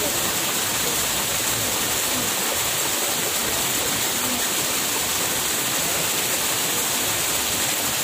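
Steady, even rush of running water, floodwater flowing over the ground.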